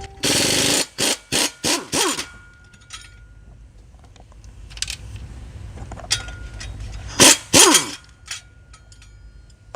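Power tool, an impact wrench, running off the flywheel bolts: a longer burst just after the start, several short bursts over the next two seconds, and two more near the end, the motor winding down in pitch after each.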